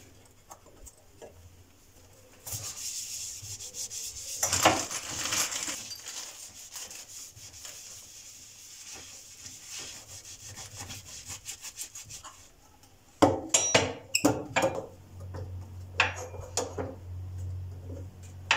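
Steady scraping for about ten seconds, then several sharp knocks and clatters.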